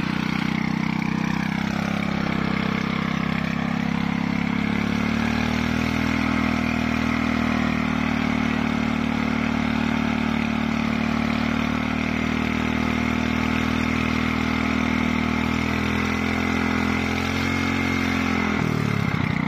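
Air-cooled Sumo Rato petrol engine running steadily; its pitch rises a second or so in as it speeds up, holds, and drops sharply near the end as it slows back down.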